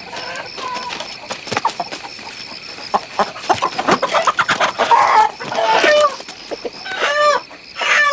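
Chickens clucking and squawking as they are grabbed by hand from the roost. The squawks grow louder from about three seconds in, with the loudest bursts near the middle and again near the end.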